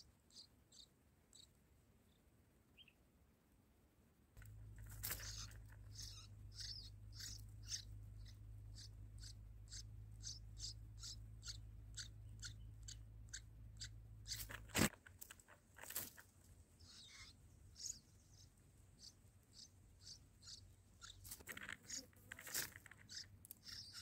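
Faint, rapid clicks and rustles of dry nest grass and leaves as a red-whiskered bulbul moves about its nest feeding chicks, with one sharper snap near the middle. Under them a steady low hum starts abruptly a few seconds in and cuts off about fifteen seconds in.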